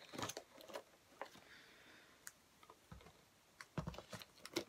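Small clicks and taps of makeup items being handled, scattered at first, then a quick cluster of sharper clicks with a couple of soft thumps near the end.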